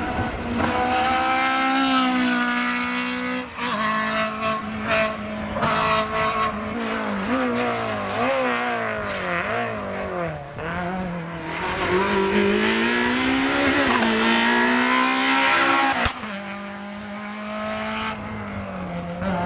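Rally car engines at full throttle on a tarmac stage: one car revving hard, its pitch climbing and dropping repeatedly through gear changes and lifts as it passes. About sixteen seconds in the sound switches abruptly to another car, a Citroën Saxo rally car, its engine held at a steadier pitch as it pulls away.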